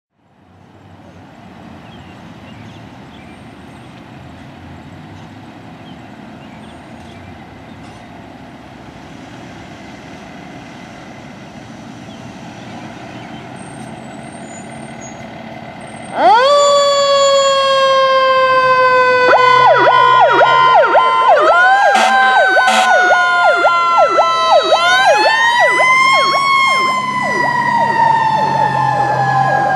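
A 2010 Ferrara Ember fire engine pulling out, its engine a low rumble that slowly gets louder. About halfway through, its electronic siren starts at full volume: a slow wail that falls and rises, with rapid yelping sweeps layered over it for several seconds.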